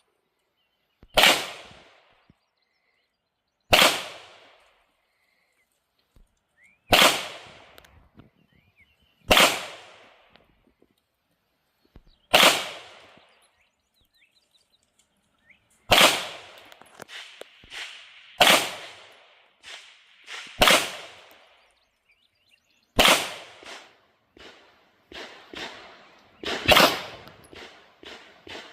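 Canik Rival 9mm pistol fired in slow, aimed single shots, about ten sharp cracks a couple of seconds apart. Fainter cracks come in between the later shots.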